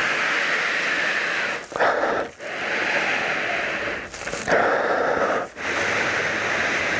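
A man sniffing an old leather-bound book held against his nose: several long, deep breaths drawn through the nose, with short breaks between them.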